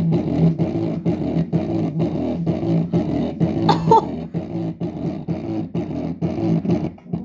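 Damaged driver of a fake JBL Charge 4 speaker playing a bass-heavy beat, distorted and buzzing in a fast, regular pulse. It cuts off suddenly near the end.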